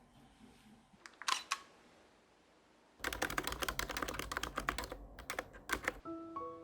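A quick, dense clatter of small hard clicks lasting about three seconds, after two brief clicks earlier on. Piano music comes in near the end.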